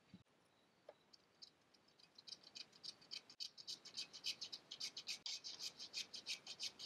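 Block plane shaving the tapered edge of a western red cedar strip down to a marked line, in quick short scratchy strokes, about five a second. The strokes start about two seconds in, after a few faint clicks.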